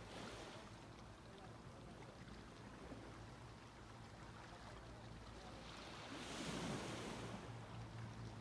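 Small waves breaking and washing up the beach, with a larger wave surging in about six seconds in.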